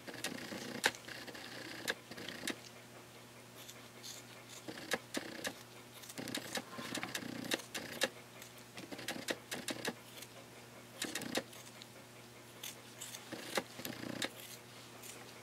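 Dissection scissors snipping around the edge of a preserved cow eye's cornea, where it meets the sclera: small, quiet metallic clicks and snips at irregular intervals.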